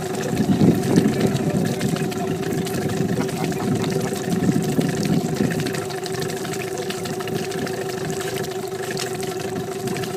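Boat motor running with a steady hum, with water churning and rumbling that swells twice.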